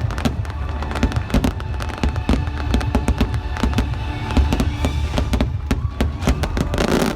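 A dense barrage of fireworks bursts, banging and crackling many times a second over a deep rumble, with music playing underneath.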